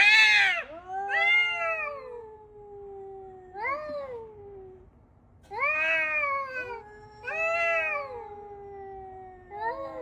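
A cat meowing repeatedly in long, drawn-out yowls, about six calls, several sliding down in pitch as they trail off.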